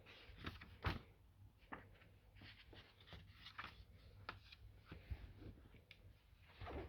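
Faint scattered rustles and light clicks of packaging being handled and opened.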